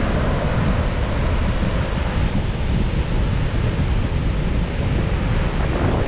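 Gulf of Mexico surf washing onto the beach, with wind buffeting the microphone in a steady, heavy low rumble.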